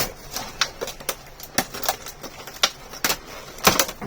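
Packaging being worked loose by hand: an irregular run of sharp clicks and snaps, the loudest a little before the end.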